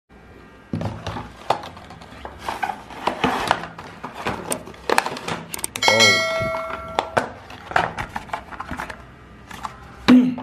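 A cardboard earphone box and its paper inserts and plastic tray being unpacked by hand, with rustling, clicks and light knocks. About six seconds in, a short whoosh and a bright bell chime ring out for about a second.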